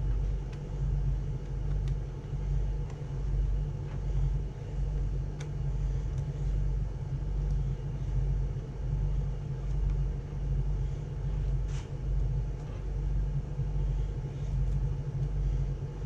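A steady low rumble that swells and fades about once a second, with a few faint clicks over it.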